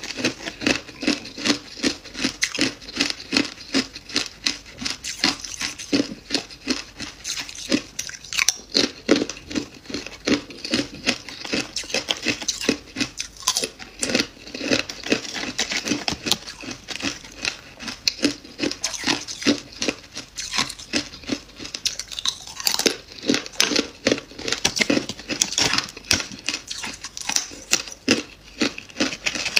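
Close-up crunching of freezer frost: crisp ice being bitten and chewed, with small crackles as flakes are broken off, several crunches a second throughout.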